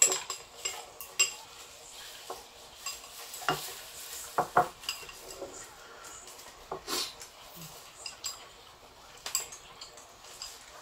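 Chopsticks and a ladle clinking and knocking against a pan and bowls as noodles are served and eaten: scattered single clinks and taps, a few of them ringing briefly.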